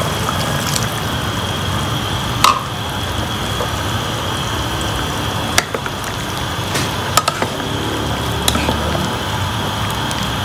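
Water poured from a cup into a stone-coated pot of simmering pork, then a wooden spatula stirring the meat and knocking sharply against the pot a few times over the steady simmer.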